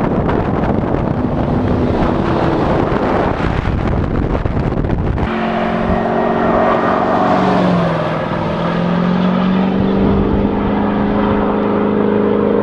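Vehicles on the road: wind rushing over the microphone with engine and tyre noise as a lifted 2008 Ford F250 Super Duty drives alongside. After a cut about five seconds in, a steady engine hum takes over; its pitch drops once a few seconds later and then holds.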